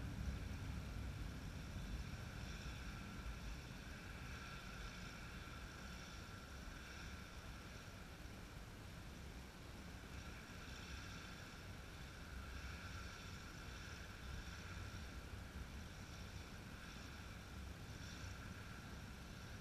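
Faint, steady low rumble with a light hum and hiss above it, easing a little over the first couple of seconds.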